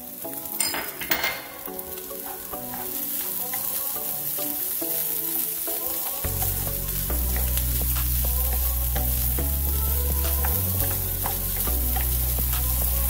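Egg fried rice sizzling and being stirred in a hot pan over a high flame, the sizzle building after about two seconds, with a few sharp clatters about a second in.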